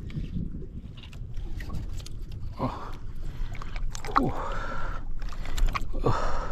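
Steady low rumble of water and wind around a small fishing boat, with three short sounds that fall steeply in pitch, each about a second and a half apart.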